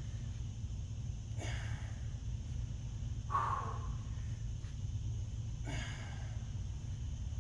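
A man's hard exhales of effort while curling dumbbells: three short puffs of breath about two seconds apart, the middle one the strongest, over a steady low hum.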